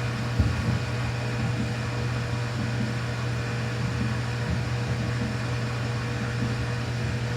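Steady low mechanical hum with a faint steady tone above it, unchanging throughout.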